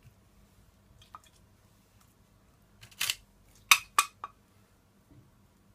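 Kitchenware clinking: a short scrape about three seconds in, then three quick sharp clinks, the first the loudest.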